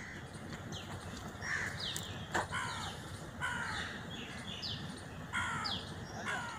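Birds calling: many short calls sliding down in pitch, about one every second, some fuller and lower, others thin and high, over a faint low hum, with a couple of sharp clicks about two seconds in.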